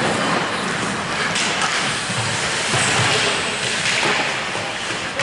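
Ice hockey rink noise: skates scraping and carving on the ice, with a few sharp knocks, in a large echoing arena.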